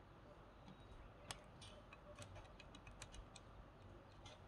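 Near silence with faint, scattered small clicks and taps from a circuit board being handled and a pen-like pointer touching its components; the sharpest click comes about a second and a quarter in, another about three seconds in.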